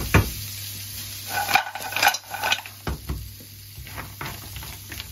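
Wooden spoon stirring mussels and cockles in a frying pan, the shells clattering and knocking against the pan over a light sizzle. The knocks come irregularly, with a busier run of clinks about halfway through.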